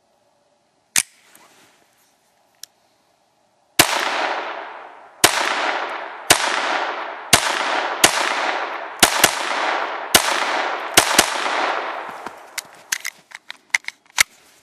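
Ruger 22/45 Mark III .22 LR semi-automatic pistol with a 4-inch barrel firing: a single shot, then after a pause about ten shots at roughly one a second, each trailing a long echo. Near the end comes a quicker run of shorter, drier shots.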